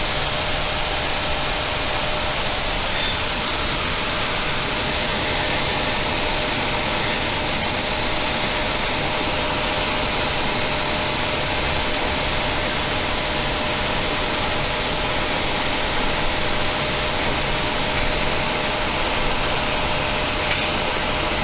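Steady running noise inside a moving passenger train carriage: the rumble of the train on the rails with a constant hum underneath. A faint high whine comes and goes for a few seconds in the middle.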